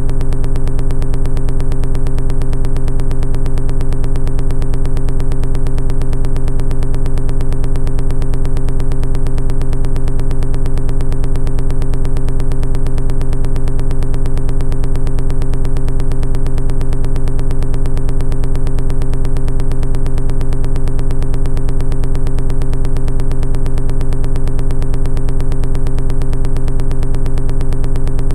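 Steady, unchanging synthesizer-like background music: a held drone chord with a fast, even pulse.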